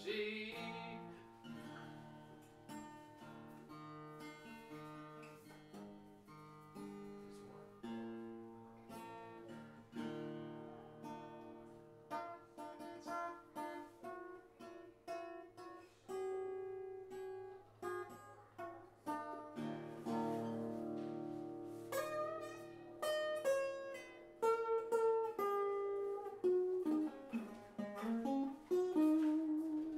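Improvised solo acoustic guitar music on a koa-wood guitar, plucked single notes and chords, with gliding, bent notes near the end.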